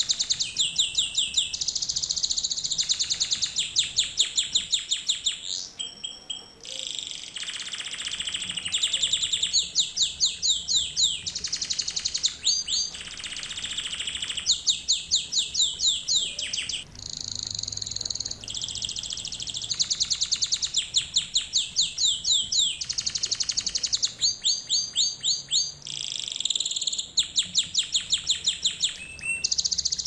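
Domestic canary singing a continuous song of fast trills: each phrase is a rapid string of repeated high notes lasting a second or two, then the bird switches to a different trill.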